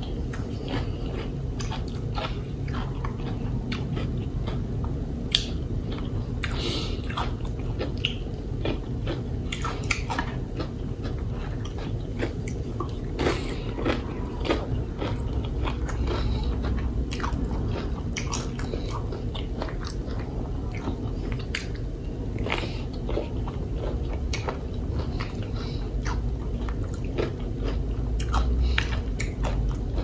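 A person chewing and biting into crunchy food close to the microphone: a meal of loaded tortilla-chip nachos and fried chicken wings. Many short, sharp crunches come irregularly between stretches of wet chewing.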